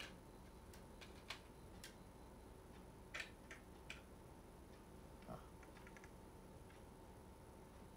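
Near silence broken by faint clicks and taps from a small plastic toy supply box being handled and opened: single clicks through the first four seconds, then a quick run of small ticks about six seconds in.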